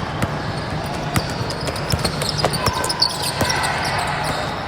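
A basketball bouncing on a gym floor during play, a scatter of short sharp smacks at irregular times over a steady low hum of the hall.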